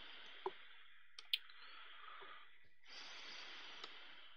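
Faint steady hiss with three short sharp clicks in the first second and a half, typical of a computer mouse being clicked while switching windows.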